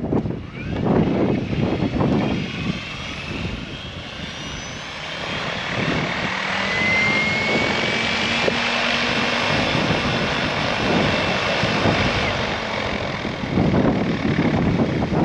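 Goosky RS7 electric RC helicopter hovering: its rotors whirr steadily with a high motor whine that rises in pitch around the middle. Wind gusts buffet the microphone near the start and again near the end.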